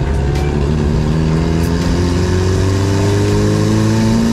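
Car engine running under steady, light acceleration, its pitch rising slowly and evenly.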